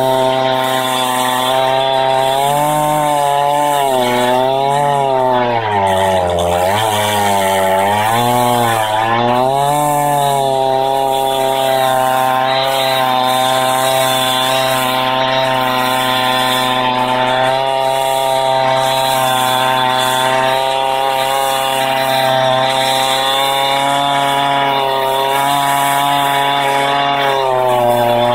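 Husqvarna 390XP two-stroke chainsaw at full throttle, milling lengthwise through a Douglas fir log with a ripping chain on a 28-inch bar. The engine pitch sags and recovers under the cutting load for the first ten seconds or so, lowest about six seconds in, then holds steady.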